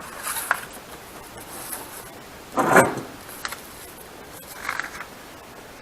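Paper pages of the radiator pressure tester's owner's manual being handled and turned: one short rustle about two and a half seconds in, with a few small taps and rubs around it.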